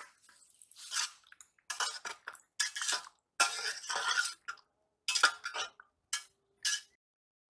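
Metal kitchenware clattering: a steel ladle clinking and scraping in an aluminium pot of bitter gourd slices in water, against a steel plate. A run of short, sharp clinks and scrapes that stops near the end.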